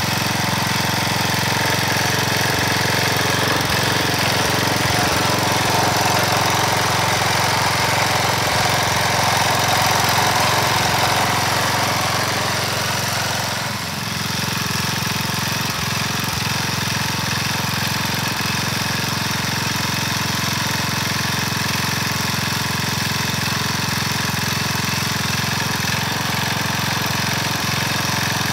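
Small engine of a front-tine garden tiller running steadily under load as its tines churn sandy soil. The sound dips briefly about halfway through.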